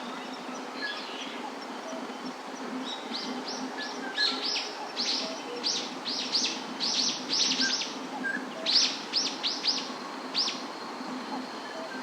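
A songbird calling a quick series of short, high notes that sweep downward, about twenty of them over some seven seconds, starting a few seconds in and stopping near the end, over steady outdoor background noise.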